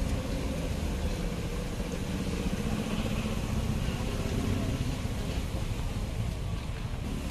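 Skewered spiral potatoes deep-frying in a tray of oil, a steady sizzle over a constant low engine-like rumble that is the loudest part of the sound.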